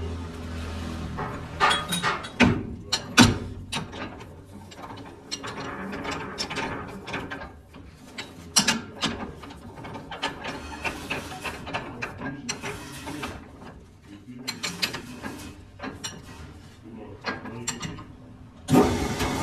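Metal parts and tools being handled and knocked together at a lathe: irregular clicks, clanks and rattles. A machine starts running loudly near the end.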